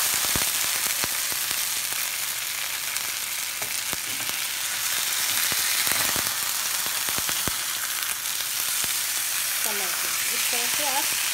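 Marinated whole fish frying in hot oil in a ridged grill pan, a steady sizzle, with a few sharp clicks and scrapes of a metal slotted spatula as the fish is turned over, its underside browned.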